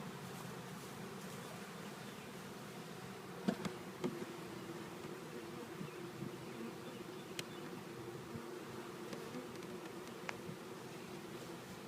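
Swarm of honey bees buzzing steadily around the opened hive, agitated after being shaken in. A few light knocks, the loudest about three and a half seconds in.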